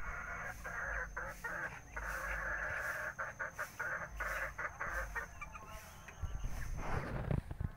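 Chickens clucking in short bouts.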